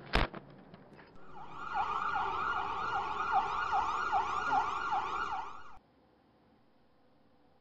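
A single sharp knock, then about a second later an ambulance siren wailing in quick, repeated rising-and-falling swoops for about four and a half seconds. The siren cuts off suddenly.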